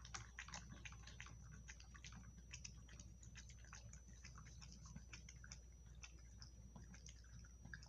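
Dog eating from a plastic bowl: faint, irregular chewing and small clicks, several a second.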